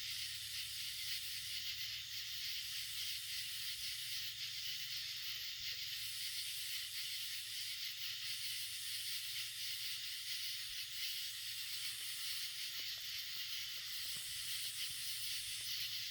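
Dense chorus of night-singing insects: a steady high shrill whose topmost layer swells and dips every few seconds.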